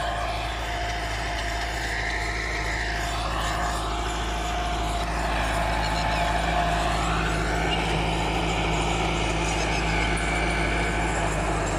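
Diesel tractor engine running steadily under load as it pulls a tillage implement over the field, with a deep hum and a held higher tone. It grows slightly louder about halfway through as the tractor comes closer.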